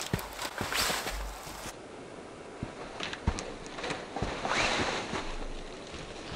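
Rustling and scraping of clothing and moss against a wooden log wall as a person slips and slides down it, with a few sharp knocks and two longer swishes, one about a second in and one near four and a half seconds.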